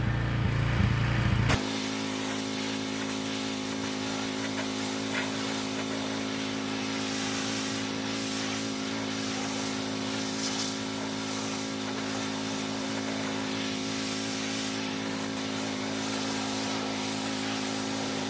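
Gas pressure washer's engine running steadily under load, with the hiss of the water spray. A louder low rumble cuts off abruptly about a second and a half in, and the engine then holds one even pitch.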